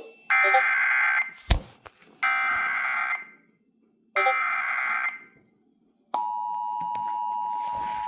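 Emergency Alert System SAME header: three bursts of warbling data tones, each about a second long and a second apart, with a sharp click after the first. About six seconds in, the steady two-tone EAS attention signal begins and holds.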